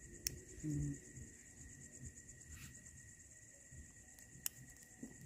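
Crickets chirring in a steady, even trill, faint, with a second steady insect tone lower down; two sharp clicks, one early and one near the end.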